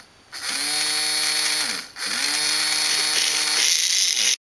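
Small K'Nex electric motor with its gear head cut off, whirring at speed as its pins are bridged by hand: it spins up about half a second in, slows almost to a stop just before the two-second mark, spins straight back up and runs until it cuts off abruptly near the end.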